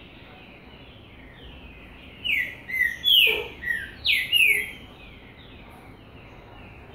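A bird calling: a quick run of about five loud, falling chirps in the middle, over fainter repeated falling notes that run throughout.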